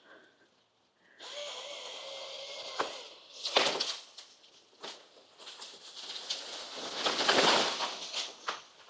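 Trees being felled, cracking and crashing down through branches and vines. A steady hiss comes first, then a sharp crack about three and a half seconds in, a run of snapping, and a long loud crash of the trees coming down near the end.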